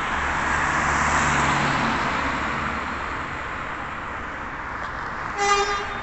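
A car passing by on the road, its tyre and engine noise swelling about a second in and then fading away. Near the end there is a brief steady-pitched tone.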